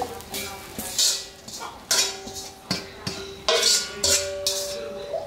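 A metal spoon scraping and knocking against a stainless-steel pan while fried bits are scraped off it into a pot. It makes a string of sharp clatters, and the pan rings with a steady tone after several of them.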